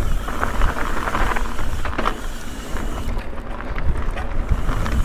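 Ibis Ripmo mountain bike descending fast over dirt and rock: tyres rolling and crunching, with scattered sharp rattles and knocks from the bike, under a steady wind rumble on the microphone.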